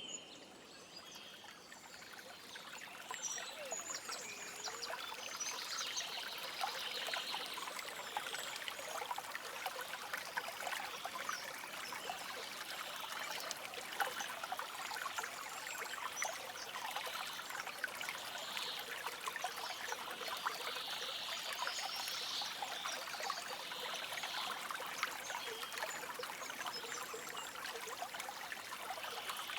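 A shallow stream running and trickling steadily, a little louder about three seconds in, with birds chirping softly here and there above it.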